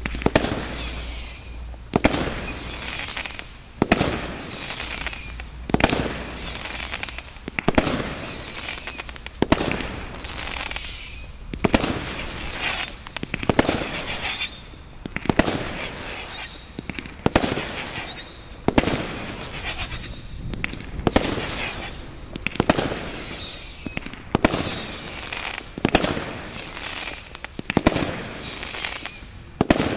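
Brothers God Father 2 firework display kit firing a steady volley of shots, about one a second. Each shot is a sharp bang followed by a crackling fizz and a short high whistle that falls in pitch.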